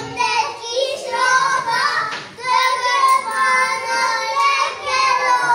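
Children singing a song, with held notes and a short break for breath about two seconds in.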